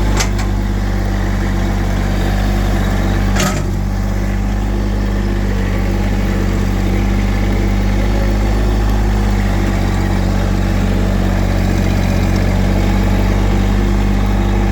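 Subcompact Massey Ferguson tractor's diesel engine running steadily, with two brief knocks about three seconds apart near the start.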